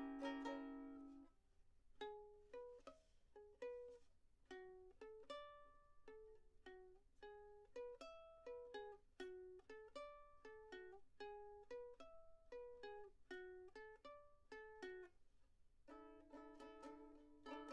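Quiet background music on a plucked string instrument, picking single notes, with ringing chords at the start and again near the end.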